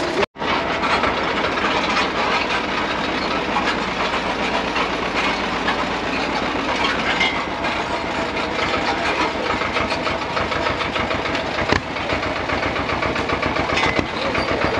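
Diesel tractor engine running steadily with an even, rapid firing pulse, heard from aboard the tractor. The sound cuts out completely for an instant about a third of a second in, and there is one sharp knock near the twelve-second mark.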